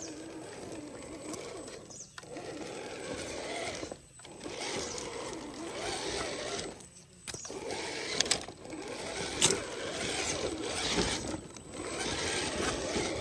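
Electric motor of an RC off-road jeep whining, its pitch rising and falling with the throttle, cutting out briefly about 2, 4 and 7 seconds in.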